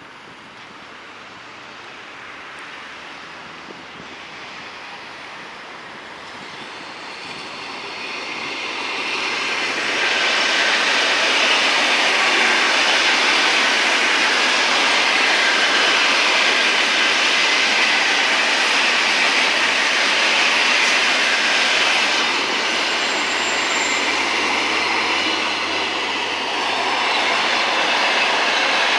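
ED4M suburban electric train running on the track, its wheel-on-rail noise growing steadily louder over the first ten seconds as it approaches, then staying loud as it runs past.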